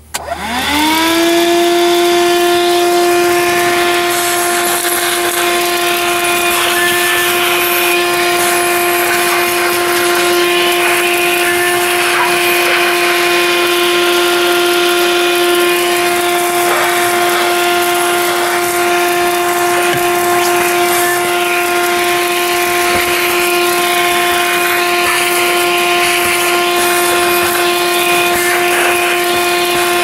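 Black & Decker PD1200AV handheld car vacuum switching on, its motor whine rising to speed within about a second, then running steadily as it sucks grit and small stones off a rubber floor mat, with occasional ticks of debris going through the nozzle.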